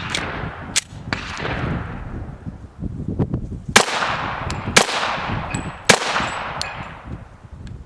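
Gunshots, about four loud ones several seconds apart plus a fainter one, each followed by a long echoing decay.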